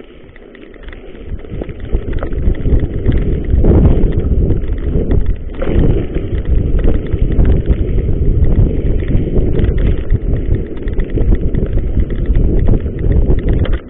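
Wind buffeting the camera microphone on a fast mountain-bike descent, with the tyres and bike rattling over the rough gravel trail. It grows louder over the first two seconds as speed builds, then stays loud.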